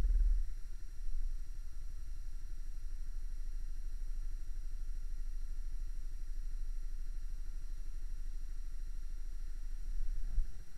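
Small motorcycle engine idling steadily with a fast, even beat. A louder low rumble at the start drops away within the first second, and the engine briefly picks up near the end.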